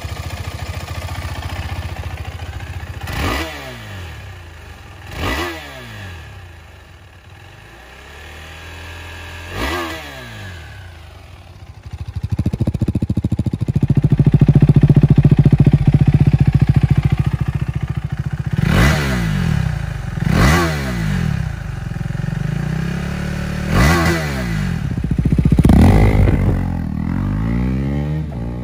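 KTM 390 Adventure's 372cc single-cylinder engine idling and being blipped three times through the stock exhaust. About twelve seconds in, it switches to a louder, deeper idle and several more revs through a Yoshimura AT2 slip-on muffler. Near the end the bike pulls away under acceleration.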